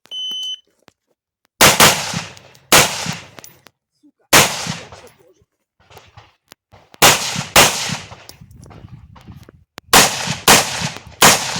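A shot timer's electronic start beep, then carbine gunshots fired singly and in quick pairs (nine in all), each with an echoing tail: a competitor's run through a practical-shooting stage.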